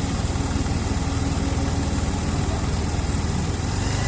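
A JCB excavator's diesel engine running steadily at a low, even speed.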